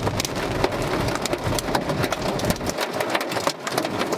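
Hailstones and heavy rain pelting a car's body and glass, a dense, continuous patter of many sharp knocks.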